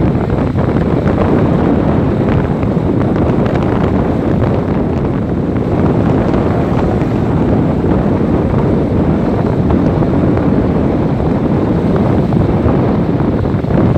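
Steady, loud wind buffeting on the microphone over the low rumble of a moving vehicle.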